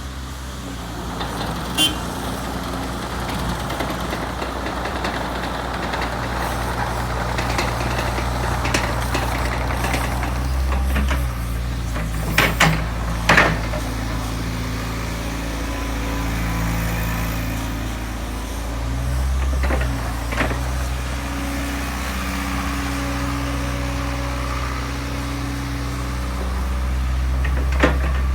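Midi excavator's diesel engine running steadily, its note shifting a couple of times, with a few sharp knocks, most of them clustered about halfway through.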